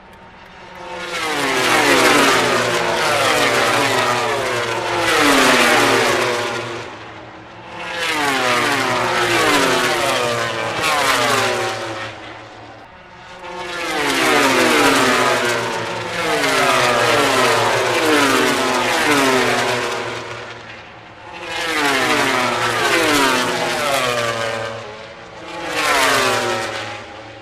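MotoGP racing motorcycles, four-cylinder 1000 cc prototype engines, screaming past at high revs in four bunches, each note stepping down in pitch again and again as the bikes go by.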